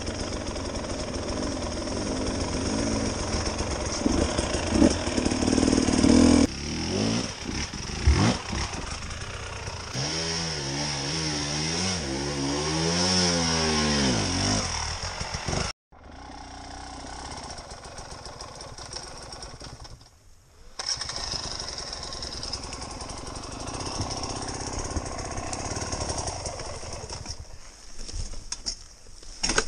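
Dirt bike engines running and revving on a steep climb, the pitch rising and falling as the throttle is worked. The sound breaks off for an instant about sixteen seconds in, and the engine is quieter after that.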